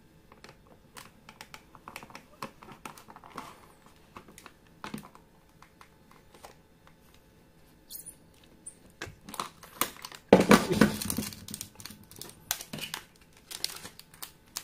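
Ingco utility knife blade cutting through a hard plastic blister pack: a run of small clicks and crackles, with a louder burst of plastic crackling about ten seconds in. Near the end the cut blister crinkles as it is pulled open.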